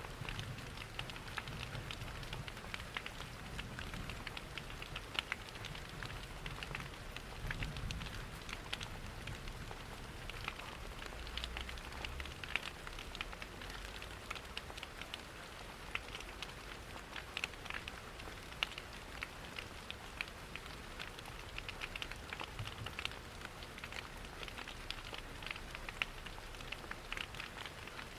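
Rain pattering mixed with a crackling wood fire: a steady hiss dotted with many small, sharp pops and ticks. A low rumble comes and goes in the first half.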